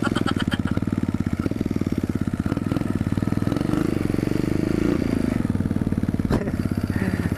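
Yamaha XT250's single-cylinder four-stroke engine running under way, its exhaust pulsing steadily, revs lifting a little about halfway through, with one sharp click near the end. The bike's exhaust manifold has a hole in it.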